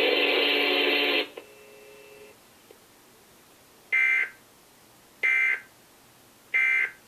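Emergency Alert System end-of-message code: three short, identical digital data bursts about a second and a quarter apart, the signal that closes the alert. Before them, a loud steady buzzing sound cuts off abruptly about a second in.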